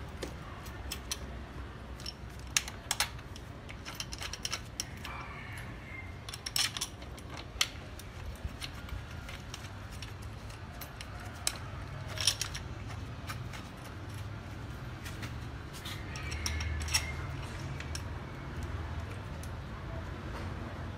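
Scattered metallic clinks and rattles of long steel bolts and metal mounting parts being handled and fitted while an engine is bolted to a frame by hand, over a low steady hum.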